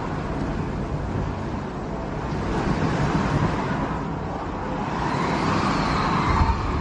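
Strong dust-storm wind blowing against the microphone: a loud, continuous rush with heavy low buffeting.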